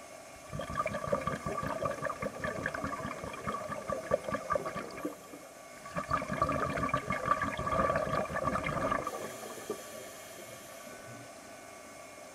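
Exhaled air bubbling out of a scuba diver's regulator, heard underwater: two long exhalations, one starting about half a second in and one about six seconds in, each lasting three to four seconds. Between and after them only a faint steady hiss.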